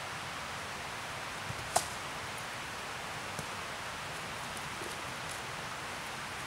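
Steady rushing outdoor hiss, with one sharp snap a little under two seconds in and a couple of fainter clicks around it.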